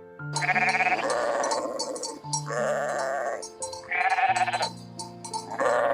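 Sheep bleating four times, each a long wavering call, over background music with steady held notes.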